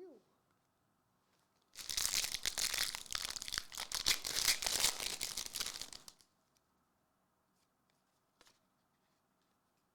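Foil wrapper of a trading-card pack being torn open and crinkled, a dense crackle lasting about four seconds, followed by a faint click.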